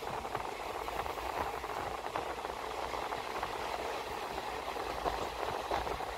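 Indian Railways express passenger train running, heard from on board: a steady rush of wheel and rail noise with light rattling of the coach.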